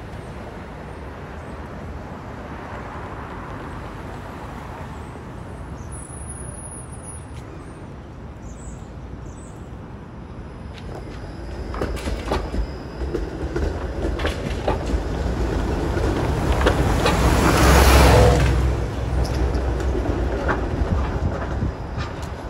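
TTC Flexity Outlook low-floor streetcar passing close over the intersection's junction tracks, its wheels rumbling and clicking over the rail joints and crossings. Light street traffic is heard at first; the streetcar grows loud about halfway through and is loudest a few seconds before the end.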